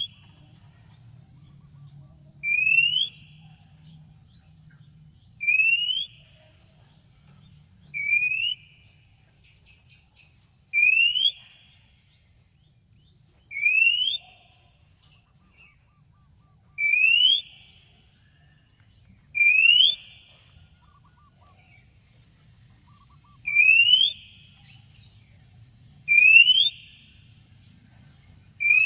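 Oriental magpie-robin (kacer) repeating a single short rising whistle about every two to three seconds, a call meant to provoke other magpie-robins to answer.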